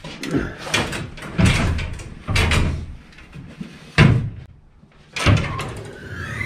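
A series of heavy wooden thumps and knocks in a wooden shed, about half a dozen at irregular spacing, the loudest one about four seconds in.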